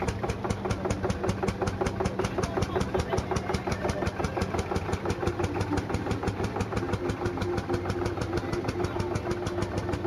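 Lanz Bulldog tractor's single-cylinder two-stroke hot-bulb engine running with a steady, rapid thumping beat of about six strokes a second.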